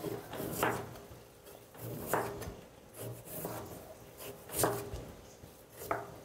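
Repeated scraping strokes on a carrot as it is peeled over a wooden cutting board, about five strokes at an even pace.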